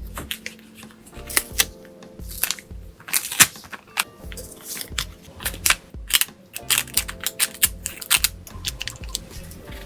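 Paper being handled and unwrapped: irregular short, sharp crinkles and snaps, several a second in places, over soft background music.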